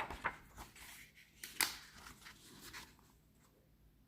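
Pages of a hardbound tarot guidebook being turned: a few short, sharp paper rustles in the first three seconds, then quiet.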